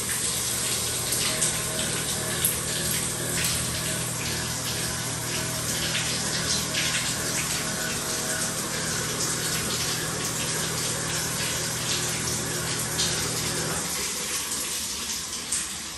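Tap water running steadily in a bathroom, turned on to test the drain piping under the house for a leak. A low hum runs beneath it and stops about two seconds before the end.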